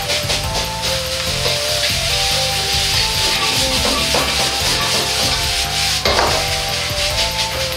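Rice sizzling in a hot wok as a metal wok ladle scrapes and stirs it and the rice is tossed, with a louder scrape-and-toss about six seconds in. Soft background music runs underneath.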